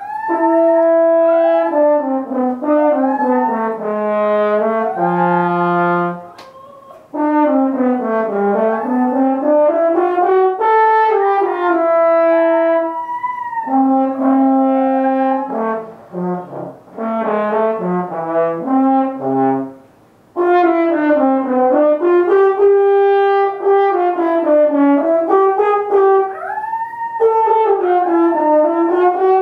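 French horn playing held notes and short phrases, with a toy poodle howling along, its howls sliding down and up in pitch over the horn. The playing and howling stop briefly a few times.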